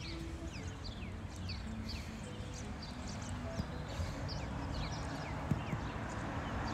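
Many small birds chirping, a dense chorus of quick, falling chirps over steady background noise, with a few sharp taps in the second half. A held music note ends about half a second in.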